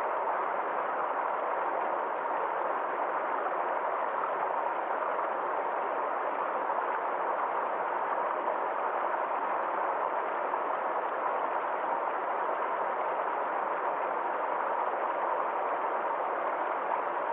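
Forest stream flowing steadily: an even, unbroken rush of water with no separate splashes.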